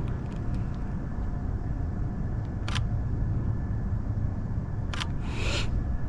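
Camera shutter clicking twice, a little over two seconds apart, with a short hiss just after the second click, over a steady low outdoor rumble.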